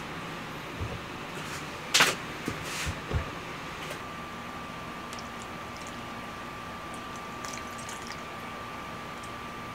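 Kitchen handling sounds: a sharp clack about two seconds in and a few softer knocks just after it, then a steady faint hum with a thin high tone.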